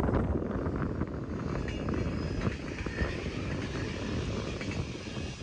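TER 2N NG (Z 24500) electric multiple unit running past, a steady rumble with a faint whine over it, with strong wind on the microphone.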